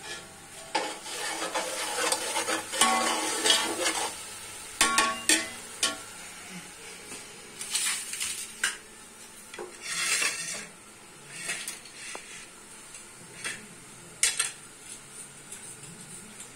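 A metal spoon stirring and scraping inside a large aluminium cooking pot, a dense clatter for the first several seconds. After that come scattered separate clinks, knocks and scrapes of steel kitchenware being handled.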